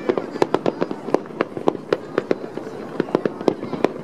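Fireworks display: aerial shells bursting in a rapid, irregular run of sharp bangs, several a second.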